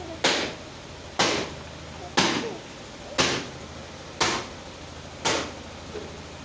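Rope-hung cloth baby swing swinging: a short, sharp noise about once a second, six times in a row, at each stroke of the swing, over a steady low hum.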